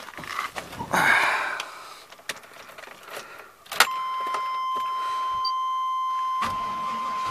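Keys rattling and clicking at the ignition of a 1995 Chevrolet Silverado as the key is put in and turned. About four seconds in, a sharp click is followed by a steady high-pitched warning tone from the dash, and near the end a low rumble comes in under it.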